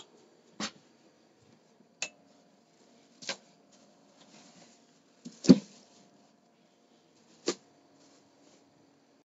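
Five separate clicks and knocks, one to two seconds apart, the heaviest about halfway through, as a Hero scooter's ignition key, seat and body panels are handled. The engine is not running.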